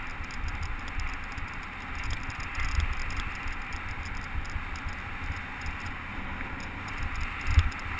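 Mountain bike tyres rolling over a dry, loose pebble-and-sand trail: a steady gritty crunching hiss over a low rumble. There is a thump about seven and a half seconds in.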